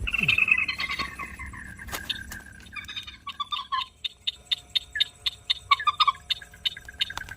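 Animal calls: a descending call lasting about two seconds, then a rapid series of short clicking calls, about five a second, over a thin steady high tone.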